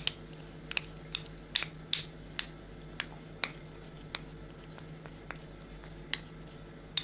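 Metal teaspoon clicking and scraping against a small cup while scooping honey out of it into a bowl. About a dozen light, sharp clicks come at irregular intervals.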